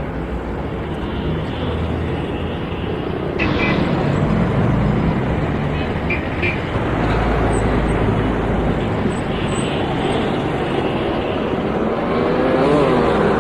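Road traffic in a jam: the engines of many slow-moving vehicles running together as a steady low rumble. It grows louder about three seconds in, with a few short high tones, and an engine note rises and falls near the end.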